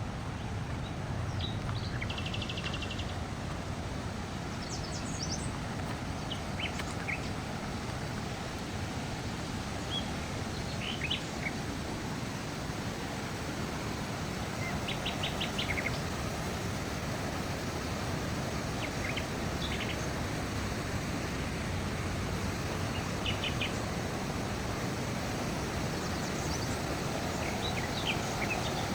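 Songbirds chirping here and there, with a quick trill about two seconds in and a run of rapid notes about halfway, over a steady outdoor rushing background.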